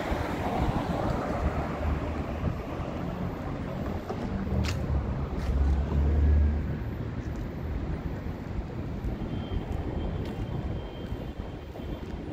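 City street traffic: a steady wash of road noise, with a passing vehicle's low rumble swelling to its loudest about six seconds in and then fading.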